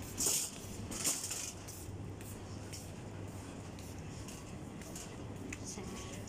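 Supermarket background sound: a steady low hum with faint scattered clinks and clatter. Two short, louder rustling noises come in the first second or so.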